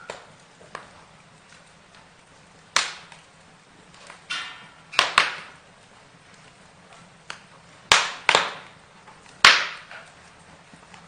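Burning wood crackling, with about seven sharp pops that each die away quickly, the loudest coming in pairs around five and eight seconds in, over a low steady background.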